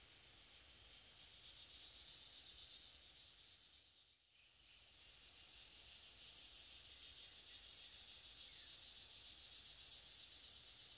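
Insects chirring in a steady, faint, high-pitched chorus, dipping briefly about four seconds in.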